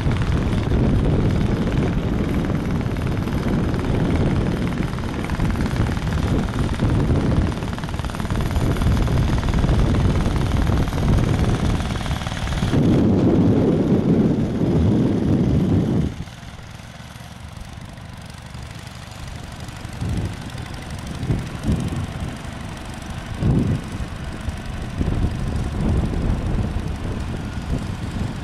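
Wheel Horse garden tractor engines running as the tractors pull a chain harrow and a plough through tilled soil. The sound is loud and close for a little over half the time, then drops suddenly to a quieter engine sound with occasional sharp pops.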